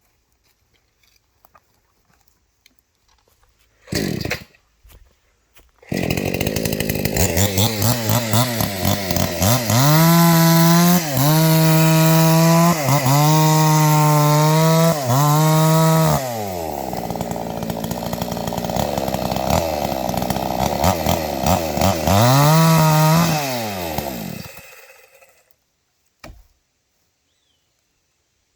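Two-stroke chainsaw starting after a short first burst, then revved hard several times in a row, dropping back to a lower steady run, revved once more, and shut off; a small knock follows.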